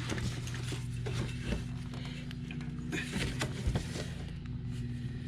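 Scattered light clicks and taps of hand tools and bolts being worked on a starter motor, coming at irregular intervals over a steady low hum.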